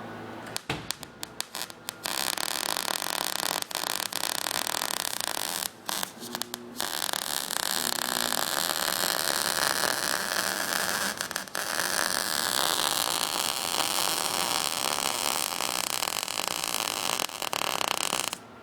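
MIG (GMAW) welding arc crackling and hissing as a bead is run along a plate. It sputters with several quick starts in the first two seconds, then runs steadily with a few brief breaks, and cuts off suddenly near the end.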